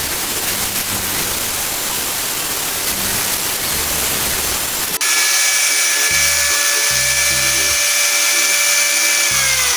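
Angle grinder running at full speed on a test run after repair, a steady motor whine over a dense hiss. Near the end it is switched off and the whine starts falling in pitch as the disc winds down. Background music with low bass notes plays underneath.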